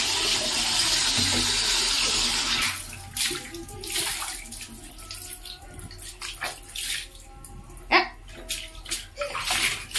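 Water running steadily for about the first three seconds, then a small child splashing and sloshing the water in a plastic bucket, with several sharper splashes, the loudest near the end.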